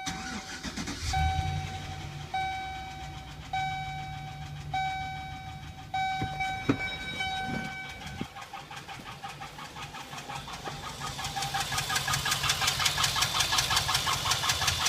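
Chevrolet Express 4.8 V8 engine starting about a second in and running, while a dash warning chime repeats for the first eight seconds. From about eleven seconds a rapid rhythmic knocking builds up and grows louder. This is the weird noise whose cause the owner is trying to find.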